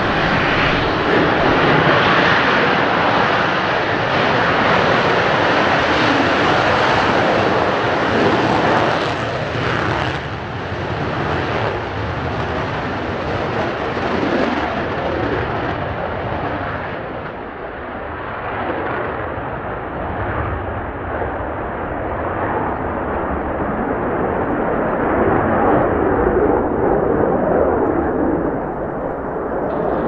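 Mitsubishi F-2B fighter's single F110 turbofan at high power through a touch-and-go, a loud continuous jet roar. After about fifteen seconds it loses its top hiss and sounds duller as the jet climbs away.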